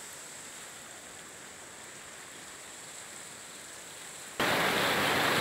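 Floodwater rushing through a flooded street: a steady watery hiss, faint at first, that jumps suddenly much louder about four seconds in.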